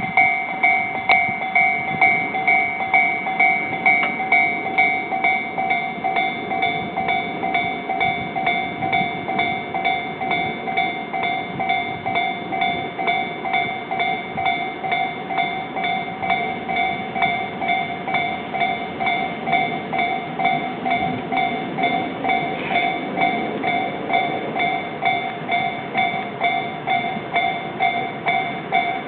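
Japanese railway level-crossing warning bell ringing its steady 'kan-kan-kan', an even, repeating ding of a little over two strikes a second, sounding while the crossing is closed for a train.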